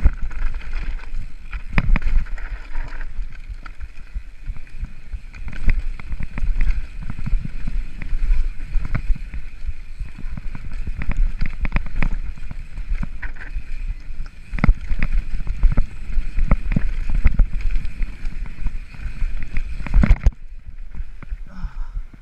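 Mountain bike descending a rocky trail: a constant rattle and knock of tyres and frame over loose stones, with wind buffeting the action camera's microphone. The rattle drops away near the end.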